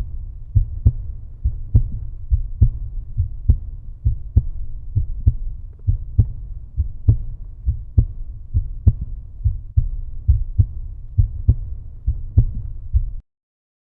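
Outro music reduced to a low, steady beat: regular thumps about two to three a second over a deep bass hum, with almost nothing in the upper range. It cuts off suddenly near the end.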